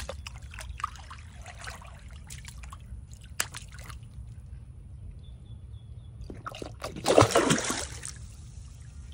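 A hand working a piece of fish fillet at a pond's surface, with small splashes and trickles, then about seven seconds in a loud splash lasting about a second as a fish strikes at the bait and churns the water.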